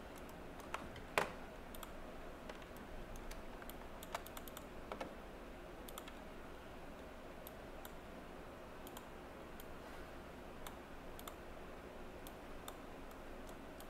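Sparse, irregular clicks of a computer mouse and keyboard, with a louder click about a second in and a quick run of clicks around four to five seconds in.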